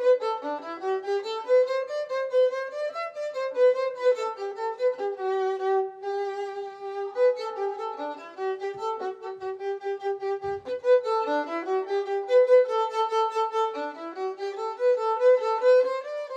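Background music: a solo violin playing a flowing melody of quick stepping notes.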